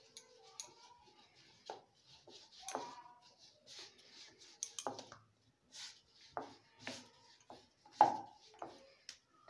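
A wooden rolling pin rolling out a small ball of dough on a wooden board, with scattered knocks and clacks of the pin against the board. The loudest knock comes about eight seconds in.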